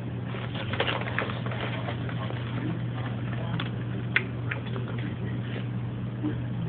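Someone eating Cheetos: scattered sharp crunches and crackles, a few seconds apart, over a steady low hum.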